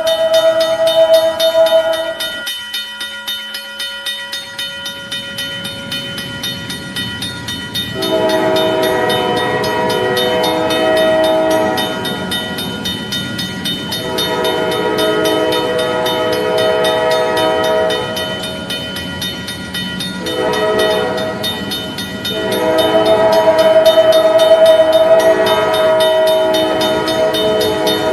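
Burlington Northern locomotive air horn sounding a multi-note chord: a blast that cuts off about two seconds in, then, after a pause, the grade-crossing signal of long, long, short, long, the last blast the loudest. Beneath it, a railroad crossing bell rings steadily.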